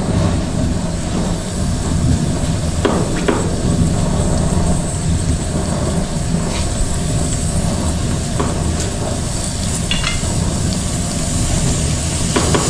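A knife cutting fruit, a few sharp, irregular chops against a board, over a steady low rumble.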